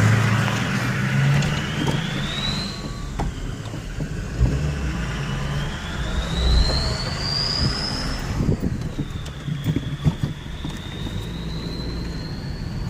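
Ford F-350 pickup's turbocharger whistling over the engine's low rumble. The whistle rises and falls in pitch twice as the engine speed changes, then holds a steady high note near the end.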